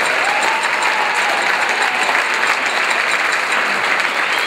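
Audience applauding steadily: a dense, even wash of clapping.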